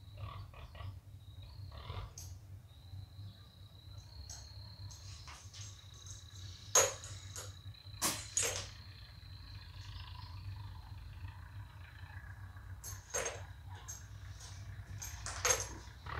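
Bicycle tire being inflated from an air compressor through a tire-inflator chuck: a steady low rumble, a faint high hiss from the leaking quick connector, and several sharp clicks and knocks as the chuck and inflator are handled.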